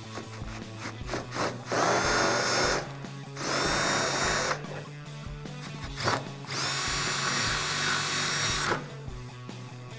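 Handheld power drill boring holes through a car's sheet-metal trunk lid with a gold twist bit. It runs in three whining bursts, the last one the longest, as the bit cuts into the metal.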